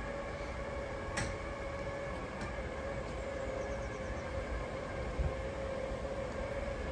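Built-in electric drive motors of a telescopic pool enclosure running with a steady whine as the sections roll along their rails, with a low rumble underneath. A sharp click about a second in, and another soft knock near the end.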